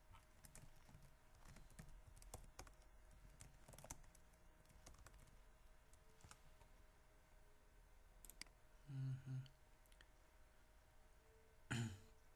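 Faint computer keyboard typing, a quick run of keystrokes over the first four seconds, followed by a couple of mouse clicks about eight seconds in. Two short low hum-like sounds come just after, and a brief louder one near the end.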